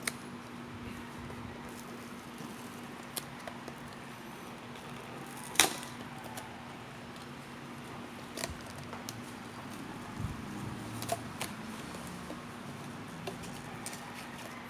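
Packaging being handled during an unboxing: scattered light clicks and taps, with one sharp click about five and a half seconds in, over a steady low hum.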